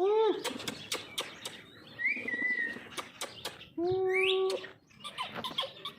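Pet parrot calling: a short falling call at the start, a brief high whistle about two seconds in, and a longer held call that sweeps sharply upward near the four-and-a-half-second mark, with many sharp clicks in between.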